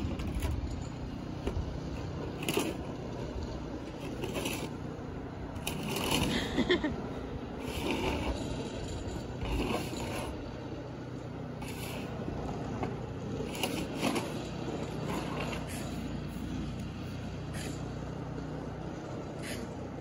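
Footsteps crunching in deep snow, a step every second or two, over a steady low hum.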